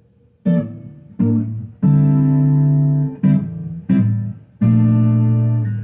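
Acoustic guitar strumming chords: about six strums, some damped short and two left ringing for about a second.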